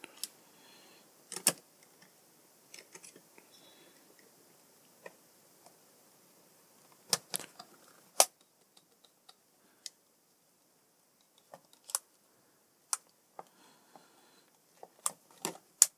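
Irregular sharp clicks and taps of a screwdriver and small parts being handled against the plastic casing of hair straighteners during reassembly, scattered with quiet gaps and clustering near the end.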